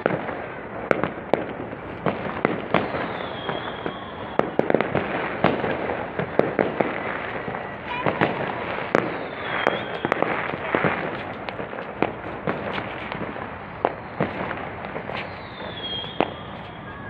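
Distant fireworks and firecrackers going off across the city: many sharp, irregular pops and cracks over a steady background noise.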